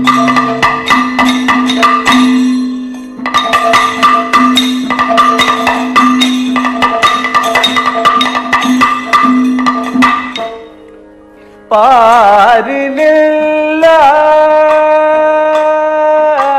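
Kathakali percussion of chenda and maddalam drums with cymbal strokes, playing fast over a steady drone for about ten seconds, then dying away. About two seconds later a male singer comes in with a wavering note that he then holds steady.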